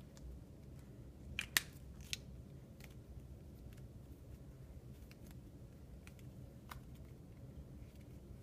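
Small objects handled by hand on a hard floor: a quick cluster of sharp clicks about a second and a half in, another click half a second later, then faint scattered ticks.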